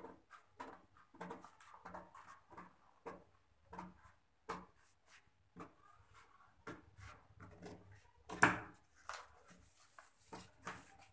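Large tailor's shears snipping through stiff brown pattern paper in a series of short, irregular cuts, with paper rustling as the sheet is handled; one louder paper sound about eight seconds in.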